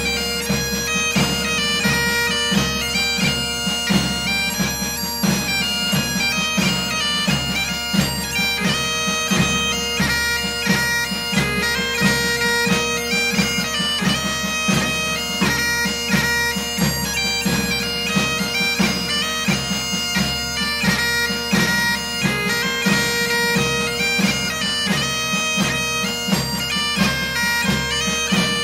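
Bagpipe music: a melody of stepping notes played over a steady drone.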